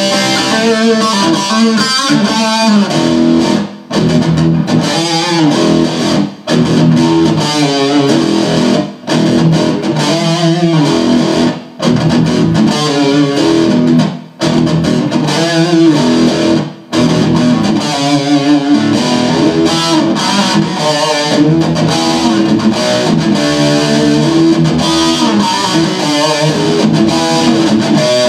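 1980 Gibson Les Paul electric guitar playing lead lines with wavering, bent notes, broken by several brief pauses, on worn-out strings. Picked up by an iPhone's built-in microphone.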